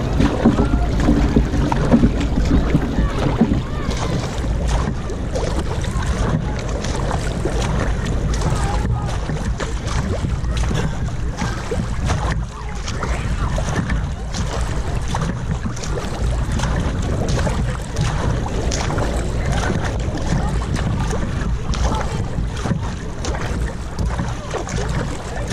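Paddle blades splashing into the water on alternate sides as a racing kayak is paddled hard, with water rushing along the hull and wind buffeting the microphone.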